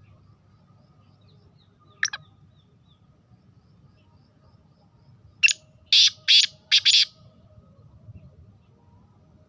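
Black francolin calling: one short harsh note about two seconds in, then a quick phrase of five harsh, grating notes.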